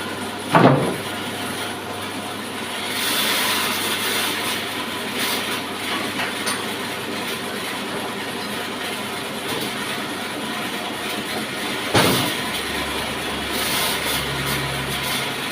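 Horizontal log band saw mill running with a steady mechanical rattle, with two sharp knocks about half a second in and again near twelve seconds.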